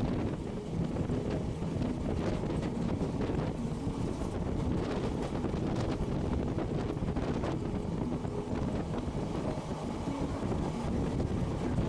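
Passenger train running along the line, heard from on board, with wind buffeting the microphone and scattered faint clicks of the wheels over the track.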